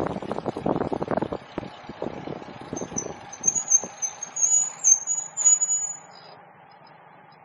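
Bicycle brakes squealing in a high, wavering pitch for about three seconds as the bike slows to a stop, ending about six seconds in. Before the squeal, wind buffeting the microphone fades as the bike loses speed; a low steady hum remains once it has stopped.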